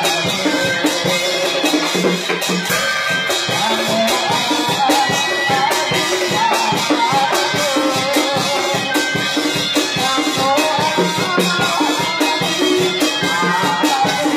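Vietnamese ritual ensemble music: fast, steady clattering percussion with drum under a wavering melody.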